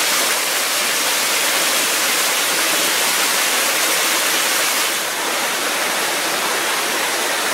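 Waterfall rushing steadily: an even, loud hiss of falling water.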